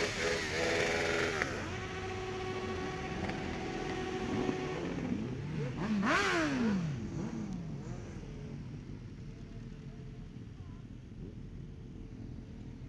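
Motorcycle engines running: a steady engine note, then about five seconds in a louder engine climbs and falls in pitch as it revs or goes past, before settling back to a quieter steady running sound.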